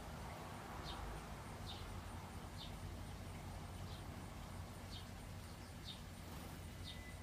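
A small bird's short, high chip notes, repeated roughly once a second, over a steady low background hum.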